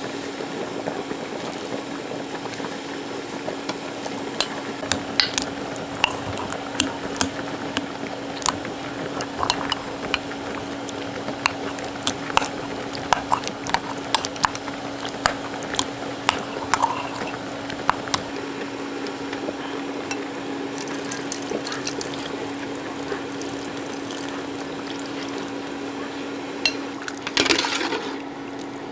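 Cooking sounds: a steady liquid bubbling bed, with many short clinks and taps of utensils against pots and dishes, and a louder rush about three-quarters of a second before the end.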